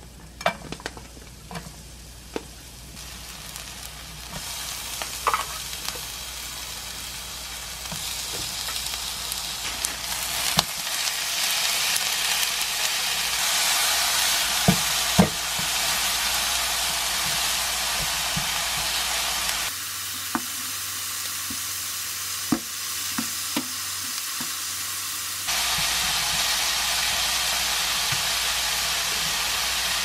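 Green onion and garlic, then thin pork slices, sizzling in oil in a nonstick frying pan, with the clicks and scrapes of a spatula stirring and pressing the food. The sizzle grows louder over the first ten seconds and drops back for a few seconds about two-thirds through.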